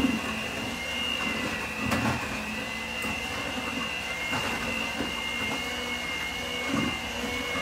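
Electric hand mixer running steadily with a high whine, its beaters working heavy cream into mashed potatoes in a metal pot, with a few brief knocks along the way.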